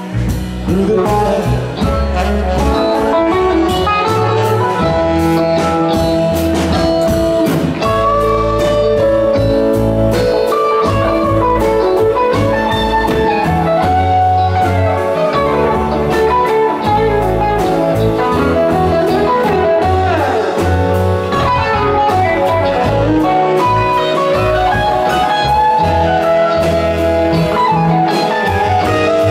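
Live rock band playing an instrumental passage: electric guitars over bass, drums and keyboards, with lead guitar lines that bend and slide in pitch.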